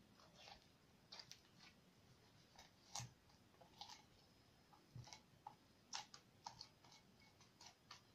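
Soft homemade glue-and-borax slime squeezed and stretched by hand, giving faint, irregular squelching clicks and pops.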